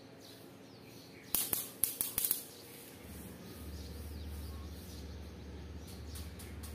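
Faint chirping of small birds, broken a little over a second in by a quick cluster of about five sharp clicks, the loudest sounds here. From about three seconds a low steady hum sets in underneath.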